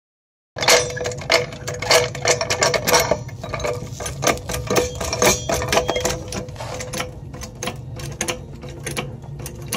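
Hydraulic floor jack being worked under a car: a run of irregular metallic clicks and clanks over a steady low hum, starting about half a second in.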